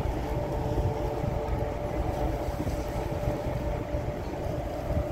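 A large TT-Line passenger ferry's engines running as it passes, a steady hum over a low rumble, with wind buffeting the microphone.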